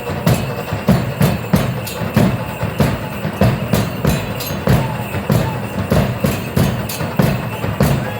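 Drums beating a steady, fast rhythm of several strikes a second to accompany a traditional Mexican danza, with a crisp clatter on each beat.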